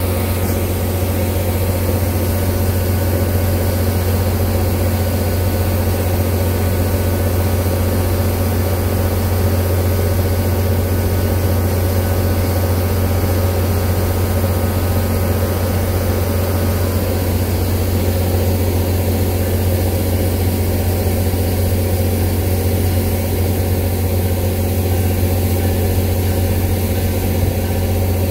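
Disabled NJ Transit GP40PH-2B diesel locomotive 4218 running with a loud, steady low drone and a higher whine that fades out about two-thirds of the way through. It is the terrific noise that marked this locomotive as the cause of the breakdown, at times sounding like it was going to explode.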